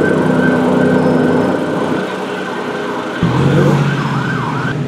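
Emergency-vehicle siren wailing up and down over city traffic noise, loudest in the second half. A low steady hum comes in suddenly about three seconds in.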